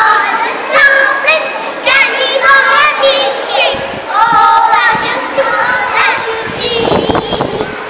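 A group of young girls singing an English action song together.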